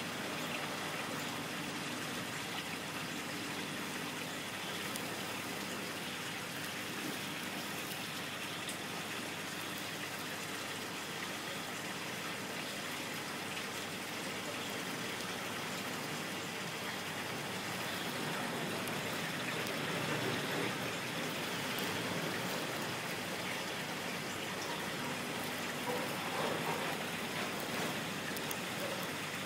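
Steady trickling and splashing of water circulating in an aquarium, a little louder in the last third.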